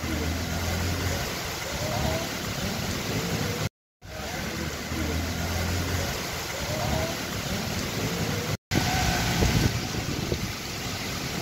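Heavy rain and strong wind make a steady rushing hiss, with traffic passing on the wet road. The sound drops out briefly twice.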